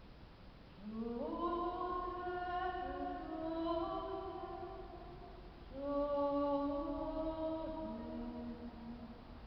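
A woman's solo soprano voice singing a slow improvised prayer melody in two long phrases of held notes, the first starting about a second in and the second about six seconds in, each note ringing on into the next in the church's reverberant acoustics.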